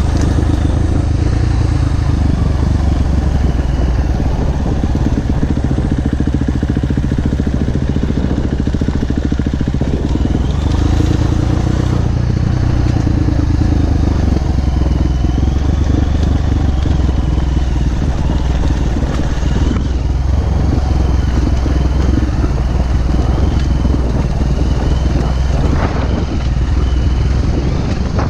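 Off-road motorcycle engine running steadily at low revs on a downhill trail ride, with a brief rev near the end.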